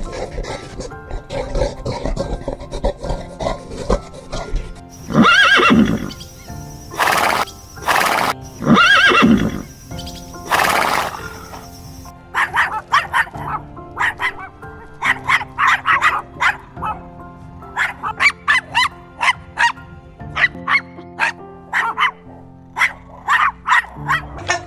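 Horse neighing several times over background music, followed by a long run of short, rapid animal calls.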